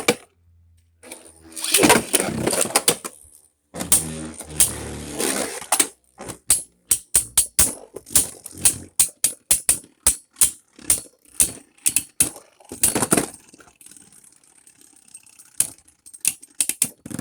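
Beyblade tops Helios Volcano and Mirage Fafnir launched into a plastic stadium with a rush of noise, then clashing, with sharp clacks a few times a second that thin out to scattered hits as the tops slow.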